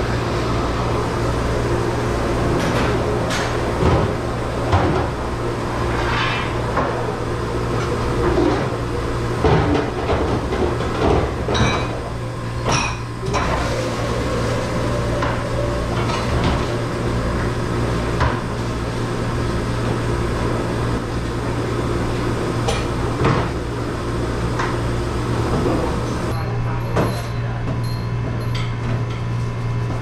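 Dishes and plastic dish racks clattering and knocking as they are handled, irregular knocks over a steady low machine hum.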